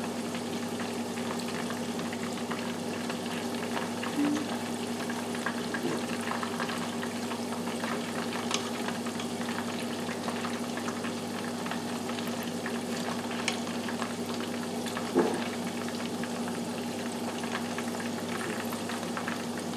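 Chicken wings deep-frying in a pot of hot oil: a steady crackling sizzle, with a few short light clicks.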